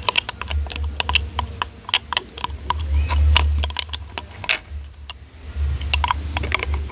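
A spoon stirring glitter glue and borax water in a bowl to form slime: a quick, irregular run of clicks and taps of the spoon against the container, over a low handling rumble, with a short lull about two-thirds of the way through.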